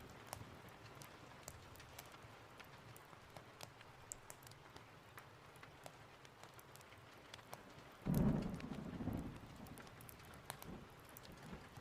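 Steady rain with scattered sharp crackles and ticks, and about eight seconds in a short, low clap of thunder that fades within a second or two.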